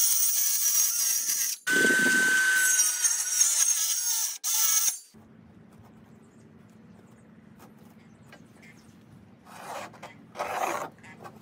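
Ryobi cordless circular saw cutting through plywood in three runs over the first five seconds, with short breaks between them and a steady whine during the second. After that it is much quieter, with short scratching near the end as a pencil marks a line along a steel square.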